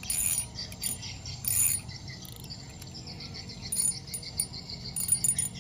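Fishing reel clicking in short bursts of sharp ticks as line is wound in on a fish, over a steady fast pulsing chirp of insects.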